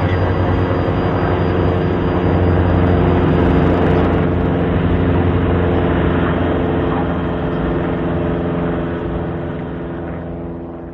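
Light single-engine propeller aircraft's engine running steadily in flight, slowly fading out over the last few seconds.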